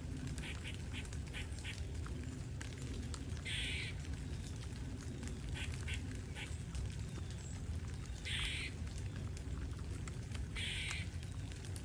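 Squirrel calling loudly: quick runs of short, sharp chips, broken by three longer, harsh, buzzy calls, one about three and a half seconds in and two near the end.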